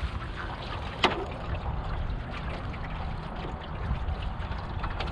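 Water trickling and splashing along the hull of a small wooden sailboat under sail, with a low rumble of wind on the microphone. A single sharp knock sounds about a second in.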